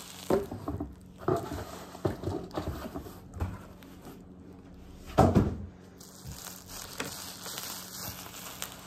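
Handling noise as a wrapped, weighted reborn baby doll in a cotton blanket and its cardboard shipping box are moved about: fabric rustling and cardboard knocking and scraping in short bursts, with a louder bump about five seconds in, then softer rustling.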